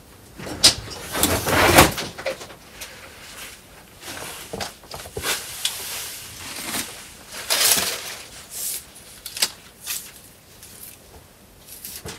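Rocks and soil being shifted by hand: irregular scrapes, knocks and clatters of stone. The sounds are loudest in the first two seconds and again about eight seconds in.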